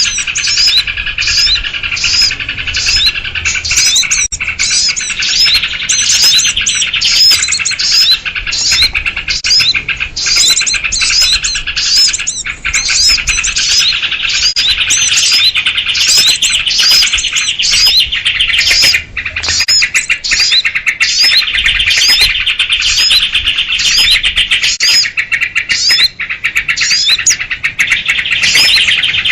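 A dense, continuous chorus of small birds chattering and chirping, led by sooty-headed bulbuls (kutilang), with sharp chirps repeating about twice a second. It is a lure call meant to draw small wild birds in for trapping.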